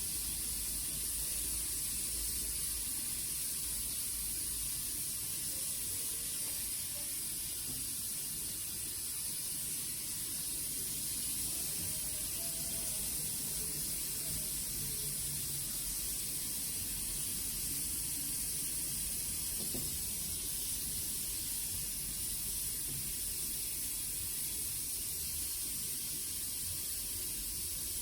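Oxy-fuel brazing torch flame hissing steadily while brazing a leak on a copper evaporator coil.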